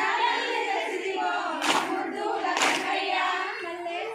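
Group of women singing a Telugu Bathukamma folk song together, with two sharp hand claps about a second apart in the middle, in time with the song.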